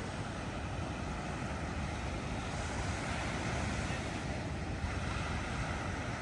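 Ocean surf from a large hurricane swell, a steady wash of noise, with wind buffeting the microphone as a low rumble throughout.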